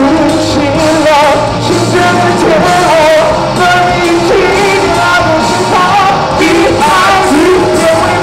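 Live rock band playing loud through the PA: electric guitar, bass guitar and drum kit, with a male voice singing a melodic line into a handheld microphone.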